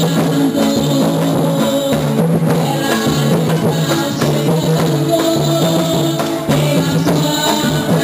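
Drum group playing music on a sound truck: a steady, loud rhythm of large drums and percussion with pitched sound carried through it.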